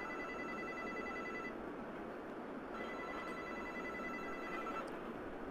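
Old 2.4 GHz cordless phone ringing with an incoming call: two electronic rings, each about one and a half to two seconds long, with a gap of about a second between them.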